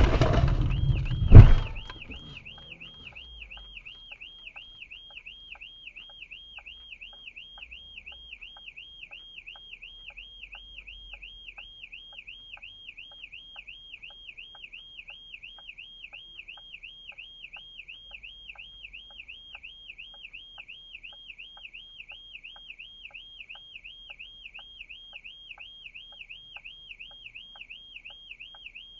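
A car is struck head-on: a loud crash at the start and a second bang about a second and a half in. Its alarm then goes off, a fast up-and-down warbling tone with regular ticking under it, going on steadily.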